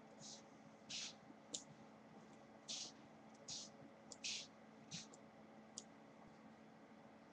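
Faint, short scratching strokes of drawing on paper, about eight of them at irregular intervals, with a couple of sharper ticks among them.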